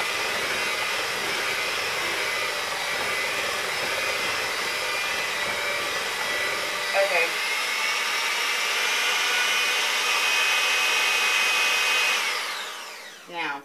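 Electric hand mixer running steadily with a whine, its beaters whipping a whole-egg and sugar filling to stiff peaks; about twelve seconds in the motor is switched off and winds down.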